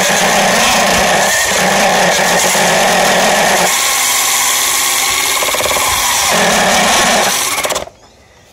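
Evolve GT electric skateboard's belt-driven motors at full throttle, spinning the rubber wheels against concrete in a burnout while loaded up toward stall. The rider puts the slipping in the drive down to a loose belt. The sound cuts off suddenly near the end.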